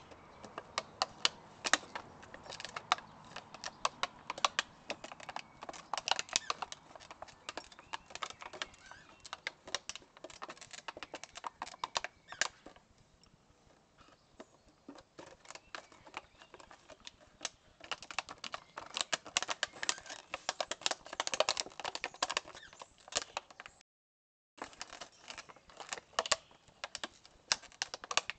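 Crinkly plastic bag crackling and rustling in irregular bursts as a chocolate Labrador puppy paws, digs at and bites it, with paws scratching in dirt. The crackling eases off for a few seconds midway, and the sound cuts out completely for about half a second near the end.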